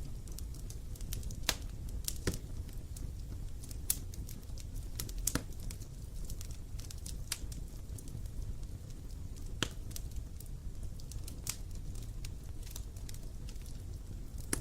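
Wood fire crackling and popping, with irregular sharp snaps a few times a second over a low steady rumble of flames.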